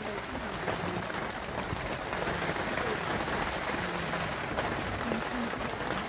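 Steady hiss of rain falling, with faint voices talking in the background.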